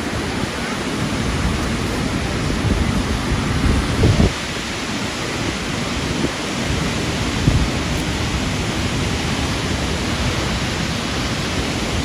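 Steady rushing of the Reichenbach Falls, a powerful Alpine waterfall with several cascades, heard close up. A couple of short low thumps about four and seven and a half seconds in.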